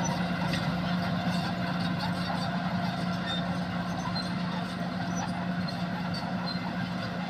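Old bulldozer's engine running steadily with an even low hum.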